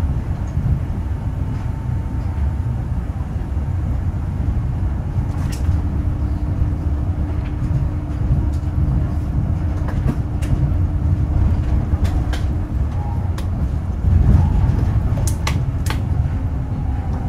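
Nanko Port Town Line rubber-tyred automated people mover running along its concrete guideway, heard from inside the front car: a steady low rumble with occasional sharp clicks, and a faint steady hum through the middle stretch.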